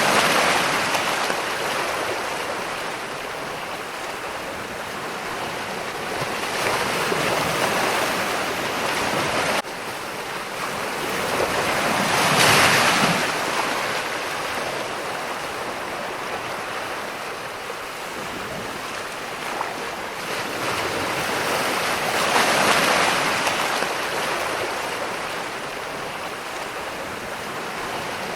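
Ocean surf: waves breaking and washing in, swelling and falling back every several seconds, the loudest wave about twelve seconds in. The level drops abruptly once, near ten seconds in.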